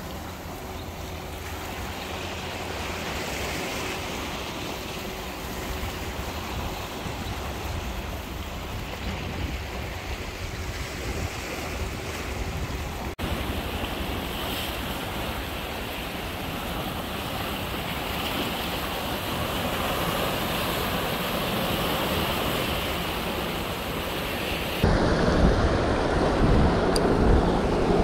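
Sea surf breaking and washing over shoreline rocks, a steady rushing wash, with wind buffeting the microphone. The wind rumble gets noticeably louder near the end.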